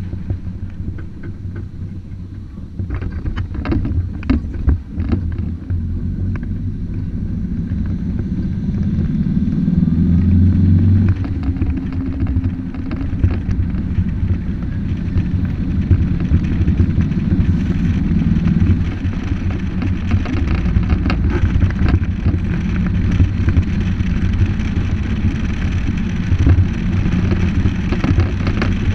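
Car engine and road noise heard from inside the cabin while driving: a steady low rumble that grows louder over the first ten seconds or so as the car picks up speed. A few sharp knocks sound about three to five seconds in.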